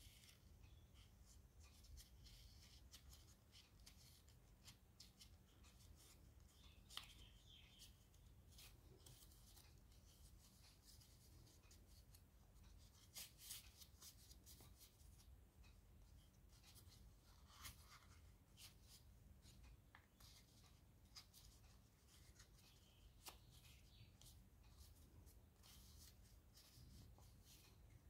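Faint rustling and crinkling of origami paper being folded and pressed by hand, with scattered small crackles as creases are pinched; a few are louder, about 7, 13 and 17 seconds in. A steady low hum sits underneath.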